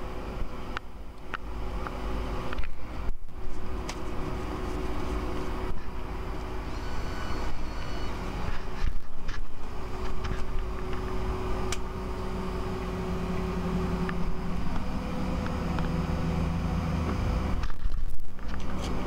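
Refrigerated bait vending machine running as it dispenses a selection, a steady mechanical hum with a few clicks early on and a stronger motor hum for about five seconds in the latter half.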